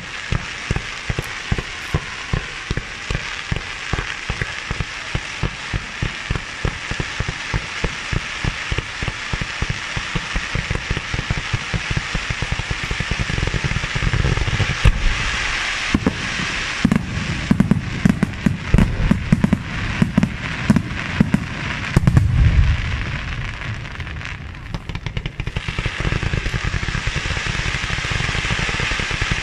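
Fireworks display: multi-shot barrages firing rapid, evenly spaced launch thumps, about three a second, over a steady crackle and hiss of burning comets. Midway the thumps come heavier and denser, then briefly ease before the firing picks up again.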